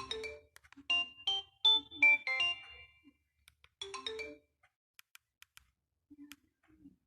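Fly FF179 mobile phone playing a ringtone melody through its small speaker: a quick run of short, bright notes lasting about three seconds, a brief snippet of notes about four seconds in, then a few faint clicks.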